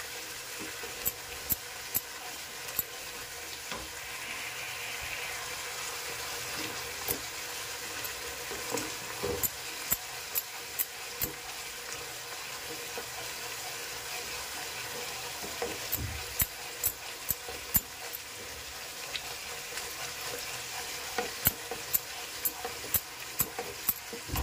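Ground spice paste frying in hot oil in a pan, sizzling steadily while it cooks down and thickens. Irregular sharp clicks and taps of stirring against the pan come in clusters.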